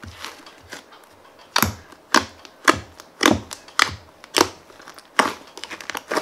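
Fluffy shaving-foam slime being kneaded and squeezed by hand, giving irregular sharp sticky pops and clicks, about one or two a second.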